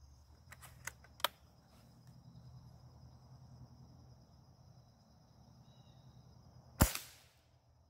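Isaazon B3-1 .177 spring-piston air rifle firing a single shot near the end: one sharp crack with a short decaying tail. Two light clicks come about a second in as the rifle is handled.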